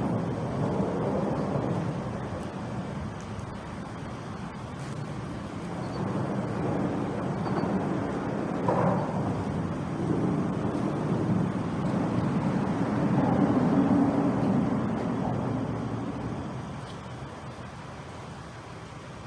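Road traffic rumbling, swelling and fading over several seconds as vehicles pass, loudest about halfway through and dropping off near the end.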